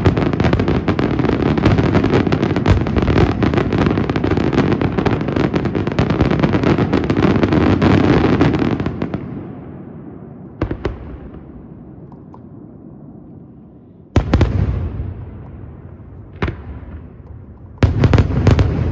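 Aerial fireworks shells bursting in a dense, continuous barrage that stops about nine seconds in. After that come a few single loud bangs, each fading away in a trailing echo.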